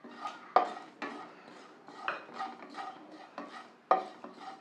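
Wooden spatula stirring and scraping fennel and shahi jeera seeds as they dry-roast in a kadai on a low flame: a run of rasping strokes with a few sharper clanks against the pan.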